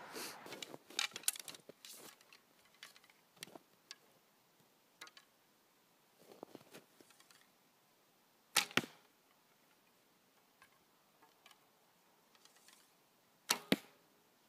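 Two shots from a traditional recurve bow, each release a sharp snap of the string sending the arrow off, about five seconds apart; the second is a quick double crack. Light handling clicks come in the first few seconds.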